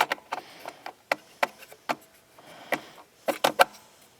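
Planer parts being handled, giving about a dozen irregular sharp clicks and light knocks, with three louder clicks in quick succession about three and a half seconds in.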